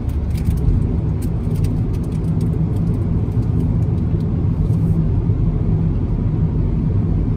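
Car cabin noise while driving: a steady low rumble of road and engine. A few faint light ticks come in the first couple of seconds.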